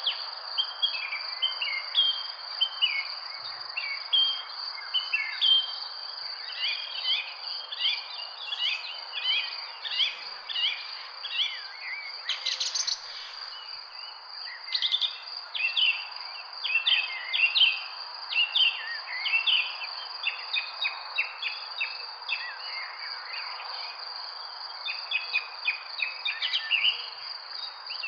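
Several birds chirping and calling in quick, overlapping short notes, over a continuous high-pitched insect drone and a steady background hiss.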